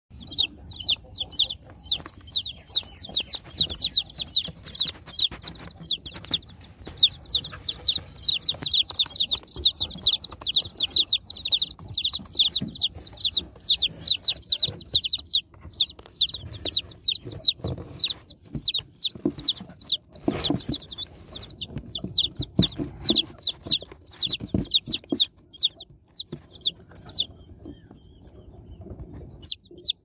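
Baby chicks peeping nonstop: many short, high calls overlapping several times a second, each falling in pitch, with a few low knocks and rustles underneath. The peeping stops for about two seconds near the end, then starts again.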